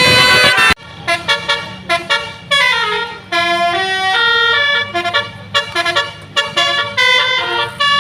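Indonesian 'basuri' telolet bus horn playing a melody of short stepped notes. A loud held chord cuts off sharply under a second in, and a steady low hum runs underneath.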